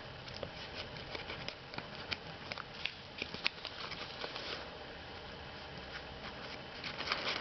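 Paper rustling and crinkling in the hands, with small irregular clicks and crackles as folded origami paper units are opened and pushed together. The handling is busiest in the first four seconds or so, quieter for a while, then picks up again near the end.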